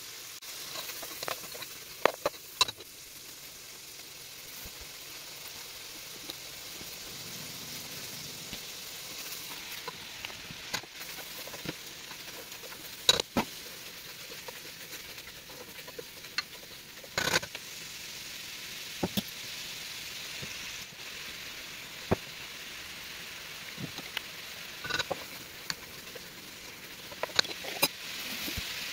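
Food sizzling steadily in a hot pot as cabbage is stirred in, with a sharp click or knock every few seconds.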